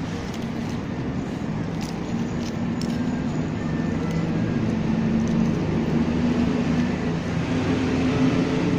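Road traffic: a vehicle engine running close by over a steady traffic hum, growing louder toward the end.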